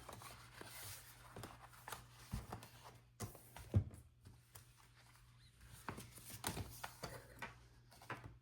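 Soft rustling and light taps of paper sticker sheets being handled as dot stickers are peeled off and pressed onto a planner page, with the sharpest tap a little under four seconds in.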